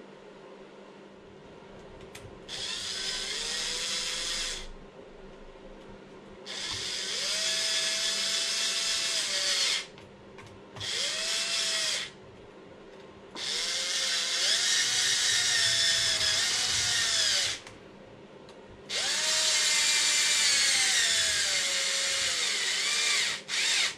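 Cordless drill/driver driving small screws, running in five separate bursts of motor whine with pauses between them; the pitch rises as each burst starts and falls through the last, longest one.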